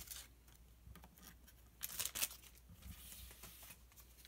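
Faint crinkling and tearing of a foil Pokémon booster pack wrapper being opened by hand, loudest in a short burst of tearing about two seconds in.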